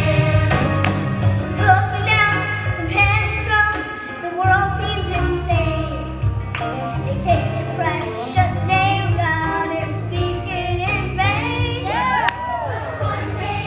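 Children's voices singing a Christmas song with instrumental accompaniment and a steady bass line underneath.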